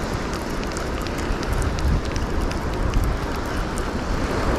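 Wind buffeting the microphone over surf washing on the shore, with many quick light clicks from a fishing reel being wound in on a hooked fish.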